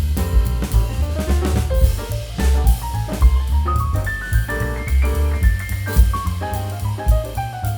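Jazzy instrumental background music with a full drum kit, bass and a melodic lead line.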